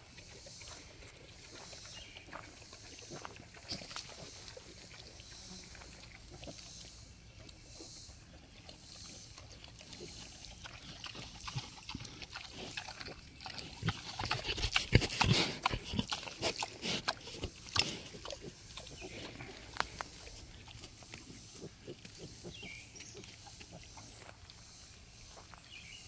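A sow and her piglets grunting and rooting on dry, twig-strewn ground, with scattered crunching clicks. The sounds are loudest and busiest for a few seconds about halfway through.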